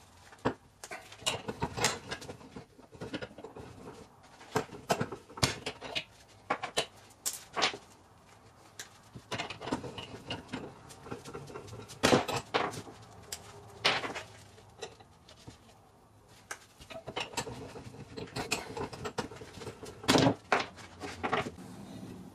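Pliers and the small metal parts of a Mini Tonka toy truck clicking, scraping and knocking irregularly as the toy is taken apart in a bench vise and its little wheels are worked off. Sharp knocks stand out about halfway through, again a couple of seconds later, and near the end.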